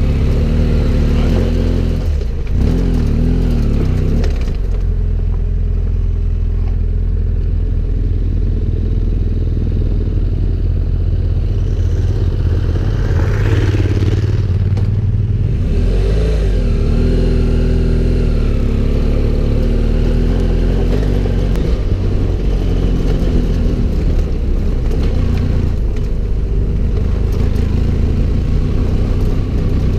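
Adventure motorcycle engine running while riding, steady and loud, its pitch rising and falling a few times with the throttle.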